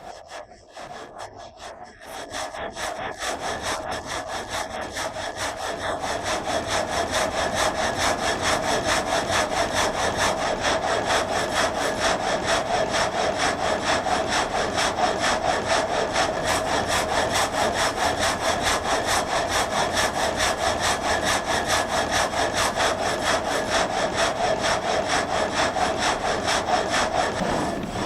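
Water-powered reciprocating frame saw cutting through a log, its blade going up and down in a steady rhythm of strokes. It grows louder over the first several seconds, then runs evenly.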